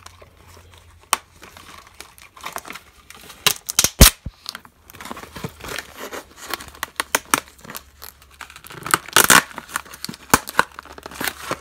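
Plastic film and black plastic tray of a frozen meal crinkling and crackling as fingers pick at the film to peel it off, in uneven fits, with a sharp crackle about four seconds in and a louder stretch around nine seconds.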